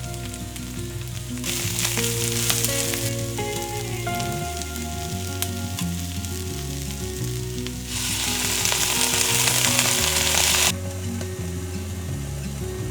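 Stir-fry sizzling in hot oil in a pan as it is stirred, with a steady hiss that swells louder twice, about a second and a half in and again about eight seconds in.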